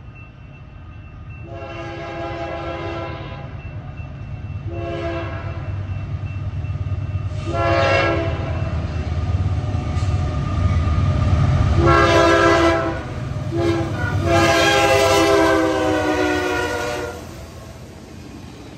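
Kansas City Southern diesel locomotive's air horn sounds a series of long and short blasts, a chord of several tones, as it nears a grade crossing. Under the horn the low rumble of the engine and wheels grows louder as the train passes. The last long blast dips slightly in pitch just before it ends.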